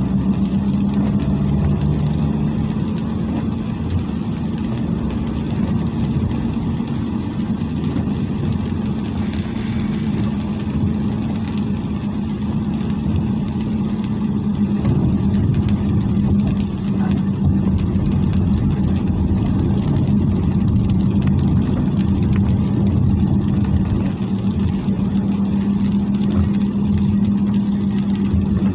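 Steady drone of a car driving on a wet road, heard from inside the cabin: an even engine hum under the hiss of the tyres.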